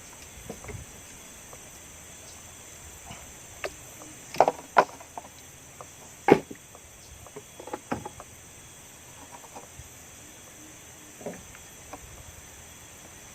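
A few scattered sharp knocks and clicks, the loudest a pair about four and a half seconds in and one about six seconds in, over a steady high-pitched insect chorus.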